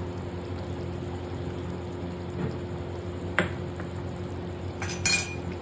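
Steady low hum in a kitchen, with a single sharp clink of a metal spoon against the cooking pan about three and a half seconds in and a brief metallic clatter near the end, as potatoes are handled in the gravy.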